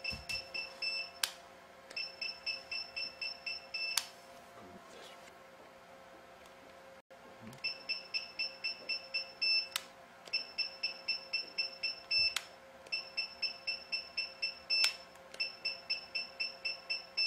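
Radiofrequency skin-tightening machine beeping rapidly, about four high beeps a second in runs of roughly two seconds, each run ending in a click, as energy is delivered stamp by stamp in stamp mode. There is a pause of a few seconds about four seconds in, and a faint steady hum runs underneath.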